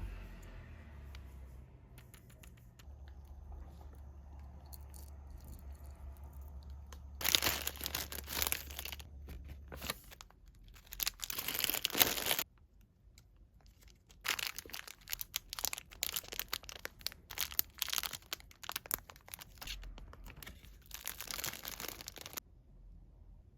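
Packaging, likely plastic wrap around gacha capsule toys, being crinkled and torn open by hand in several spells of crackling with short pauses between them. The loudest bursts come about a third and a half of the way through.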